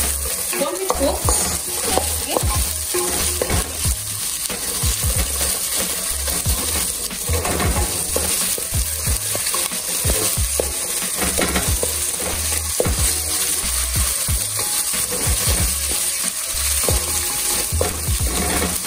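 Chopped red onions sizzling in hot oil in a metal pot, with a wooden spoon repeatedly scraping and knocking against the pot as they are stirred.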